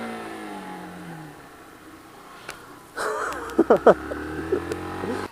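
A 125cc motorcycle engine running steadily, then dropping in pitch and fading. About three seconds in, a motorcycle engine idles close by with a few quick revs rising sharply in pitch.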